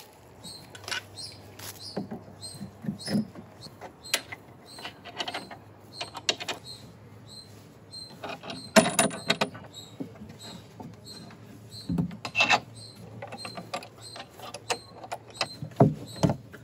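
Irregular knocks, taps and scrapes from hands handling a wooden plywood hull, with a few louder knocks partway through. A faint high chirp repeats steadily behind them.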